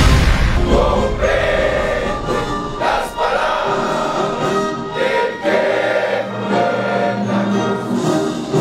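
A large group of uniformed police officers singing together in chorus, in held phrases that break every second or two.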